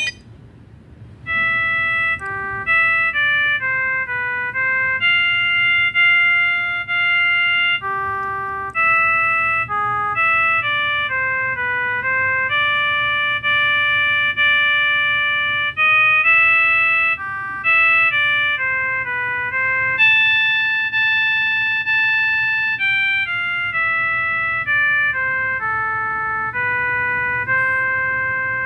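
Viettel V6217 mobile phone ringtone: a synthesized melody of clear single notes, some short and some held. It starts about a second in, after a brief pause.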